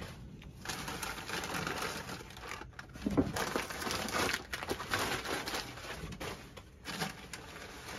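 Newspaper crinkling and rustling as it is handled and pulled off a wrapped item, with short crackles.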